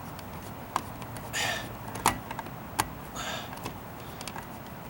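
A few sharp clicks and taps of a screw and screwdriver against a metal outlet cover as it is held in place and screwed in by hand. Two short breathy hisses come in between.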